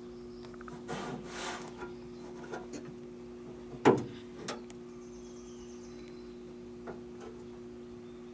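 Scattered rubbing and clicking handling noises with one sharp knock about four seconds in and a few lighter knocks after it, over a steady low hum.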